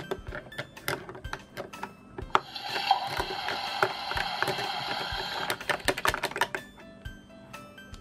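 Plastic toy scrub brush clicking and scraping rapidly against a hard plastic toy sink. A steadier scrubbing hiss runs for about three seconds in the middle.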